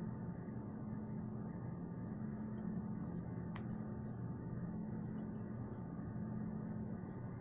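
Small scissors trimming crepe hair close to the face: a scattering of faint snips, the clearest about three and a half seconds in, over a steady low room hum.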